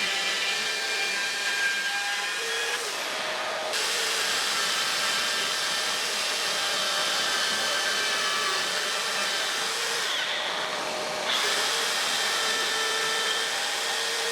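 Bosch AdvancedCut NanoBlade saw, a jigsaw-style saw with a small chain-saw blade, running and cutting wood, with a dust-extraction vacuum connected to it. The motor's whine and hiss are steady, with the high hiss dropping out briefly twice, about three and ten seconds in.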